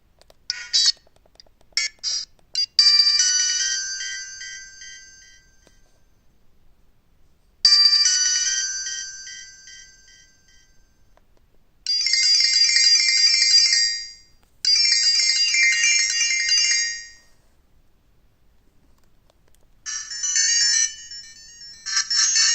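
Alcatel OT-1016D mobile phone's loudspeaker playing a series of short electronic ringtone and alert tones in turn. First come a few quick notes and a chime that dies away, then the chime again, two longer steady bursts of tones, and a quicker run of notes near the end.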